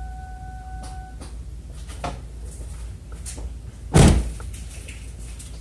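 Car door shut with a loud slam about four seconds in, preceded by a few light clicks and knocks. A steady electronic tone stops about a second in.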